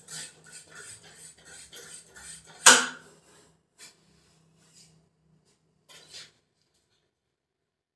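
Marker pen scratching across a whiteboard in quick short strokes, with one sharp knock against the board about three seconds in, then a few faint brief rustles.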